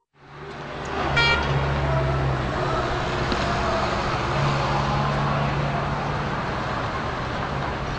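Road traffic noise: a steady rumble of passing vehicles that fades in at the start, with a brief high tone about a second in.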